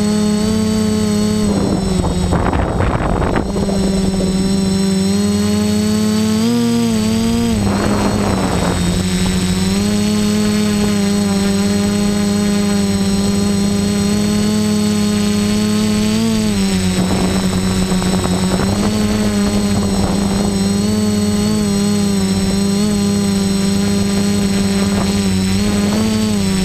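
Quadcopter's electric motors and propellers whining steadily, heard from the GoPro mounted on the craft, the pitch dipping and rising a little as the throttle changes. Rushes of wind noise come in about three times.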